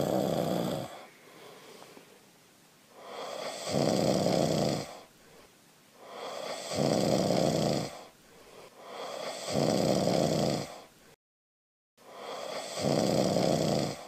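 A man snoring slowly and evenly: five long snores, each about a second and a half, coming about every three seconds.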